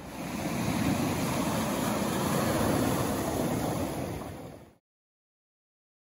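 Steady rush of water, cutting off abruptly near the end.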